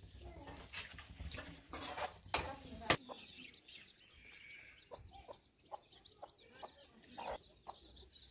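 Chickens clucking in the background, many short calls. In the first three seconds there are a few sharp clinks of steel dishes, the loudest just before the three-second mark.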